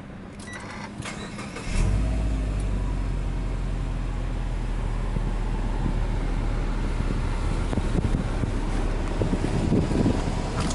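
Subaru Impreza WRX STI A-Line's turbocharged flat-four (boxer) engine being started, heard from inside the cabin: a brief crank, then it catches about two seconds in and settles into a steady idle.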